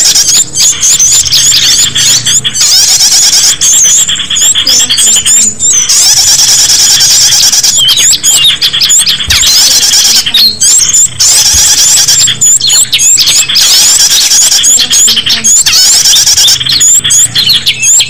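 Bird-lure recording of many small songbirds chirping and twittering together: a loud, dense stream of short, high-pitched chirps and flicks that breaks off briefly every couple of seconds.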